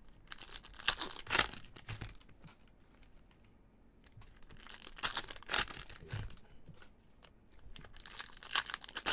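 Foil wrappers of 2020-21 Topps Chrome Bundesliga trading-card packs being torn open and crinkled by gloved hands, in three bursts of tearing and rustling with short pauses between.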